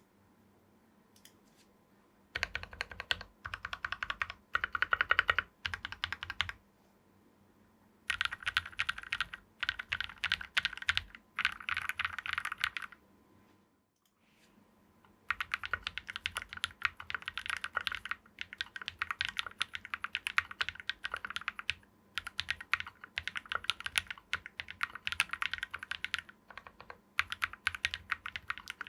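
Typing on a Tofu60 mechanical keyboard with lubed KTT Kang White 60g linear switches under PBT keycaps on a brass plate: fast runs of key presses, broken by pauses of a second or two, the longest about a quarter of the way in.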